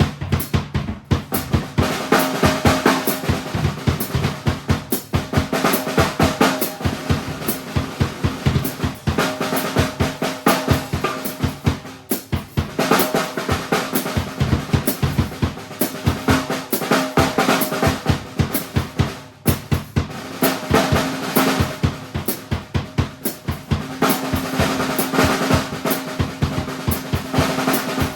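Acoustic drum kit played as an improvised groove: snare, bass drum and toms in dense, fast patterns with rolls, with drum heads ringing between strokes.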